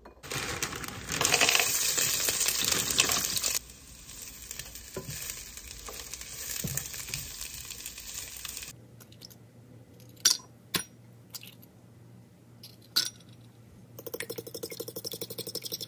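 Diced potatoes and sausage patties sizzling in a nonstick frying pan as a spatula moves them, loudest in the first few seconds. A few sharp taps follow, and near the end a fork whisks eggs in a ceramic bowl with quick, regular clinks.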